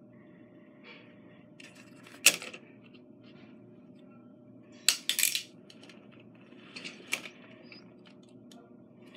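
A few sharp clicks and knocks of small hard objects being handled and put down. The loudest comes about two seconds in, a quick cluster follows around five seconds in, and lighter ones near seven seconds, with faint rustling between them.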